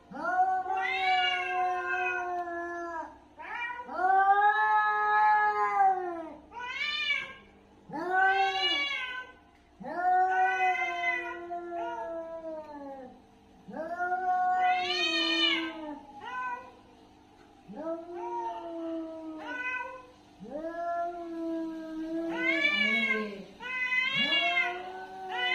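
Domestic cat yowling aggressively: a long run of drawn-out caterwauls, each rising and then falling in pitch, with short pauses between them, the kind of howling cats make when squaring up to fight.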